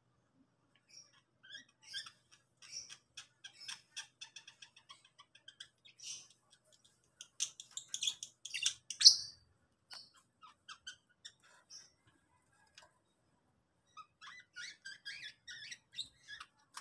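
Lovebirds chattering: shrill, high chirps and fast, clicking trills in irregular bursts, with the loudest squawk about nine seconds in. The chatter thins out for a couple of seconds, then picks up again near the end.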